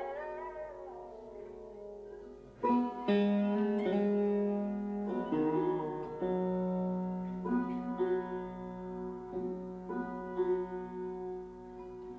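Background music led by a plucked string instrument, with notes bending in pitch near the start and fresh notes struck every second or so.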